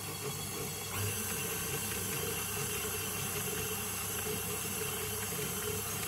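KitchenAid stand mixer's motor running steadily, its beater turning flour and vegetable shortening into a dough.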